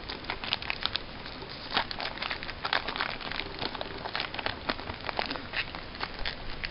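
Foil wrapper of a Yu-Gi-Oh booster pack crinkling and crackling in irregular bursts as it is handled.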